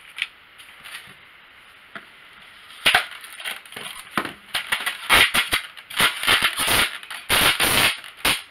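Polystyrene foam packaging squeaking and creaking in a dense run of loud, scratchy rubs from about three seconds in, as a drone's radio controller is worked free of its foam insert.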